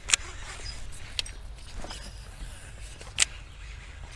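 Three sharp clicks from a Lew's Speed Spool baitcasting reel being worked in the hand, one right at the start, one about a second in and a loud one near three seconds, over a low steady rumble.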